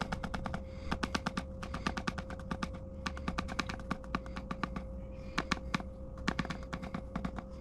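Seeds clicking and rattling as they are sown into plastic seed-starting trays: rapid, irregular clicks, several a second, over a steady high hum.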